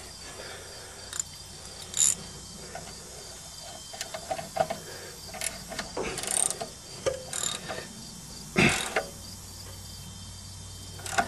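Hand ratchet clicking and metal tools clinking in irregular bursts as the alternator's adjustment-bracket bolt is tightened to take up a fan belt that has been slipping.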